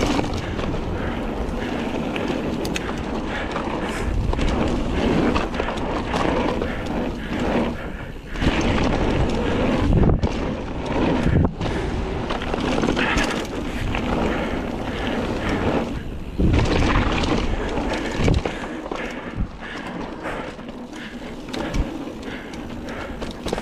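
Mountain bike riding fast down a dirt and gravel trail: a steady rumble of tyres on the ground, broken by frequent short knocks and rattles over bumps, with wind buffeting the microphone.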